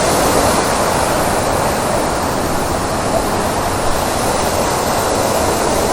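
A waterfall in heavy flow, its water rushing steadily without a break. It is swollen by two weeks of rain.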